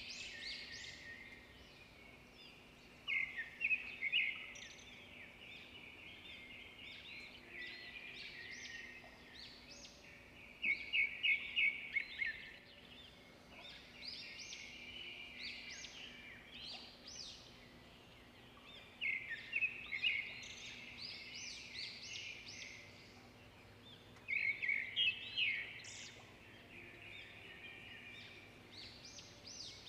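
Small birds chirping, with louder bursts of quick, rapid chirps every several seconds over a faint steady hum.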